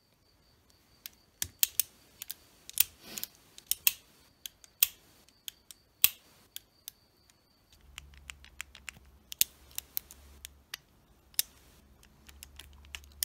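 Antique Lefaucheux Triple Action revolver being worked by hand: irregular sharp metallic clicks as the hammer, trigger and cylinder are cycled, the action working badly. A faint low hum joins a little past halfway.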